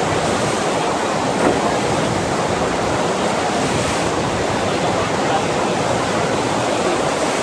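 Steady rushing of water from a FlowRider sheet-wave surf machine: a thin sheet of water pumped up and over the sloped ride surface.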